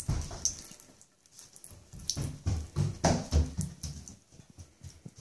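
A cat drinking at a thin stream from a bathroom faucet: water splashing into a sink in irregular short bursts as the cat laps at it, with quiet gaps between.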